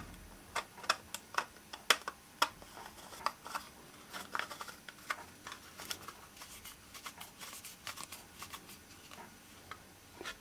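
3D-printed PLA face mask and filter holder handled and fitted together: irregular light plastic clicks and taps, one or two a second.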